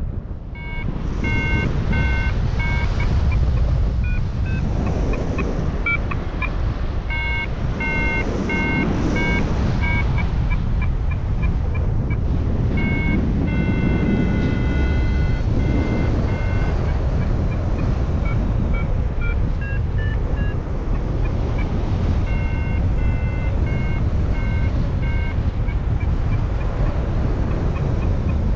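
Paragliding variometer, an XC Tracer Maxx, giving its climb beeps: short electronic beeps in runs whose pitch and length keep changing with the lift, with a few longer tones midway. Under them, steady wind noise rushes on the microphone and is the loudest part of the sound.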